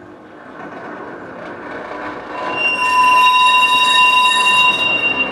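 Historic work tram running along its track, its steel wheels squealing through a curve: a rumble builds as it approaches, then a loud, steady, high squeal with several pitches sets in about two and a half seconds in.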